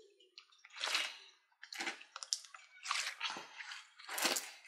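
Slime being stirred and squished in a bowl: wet squelching in irregular bursts, about one a second.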